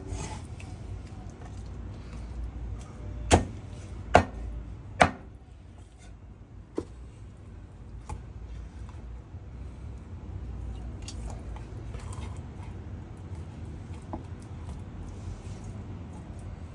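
Chinese cleaver chopping through cooked chicken onto a wooden cutting board: three sharp chops about a second apart a few seconds in, then a lighter knock, with quieter cutting and handling of the chicken after.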